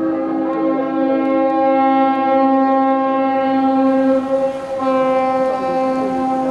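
Harbour tugboat horns sounding long, steady blasts, two horns overlapping at slightly different pitches at first. The blast breaks off briefly about four and a half seconds in and starts again.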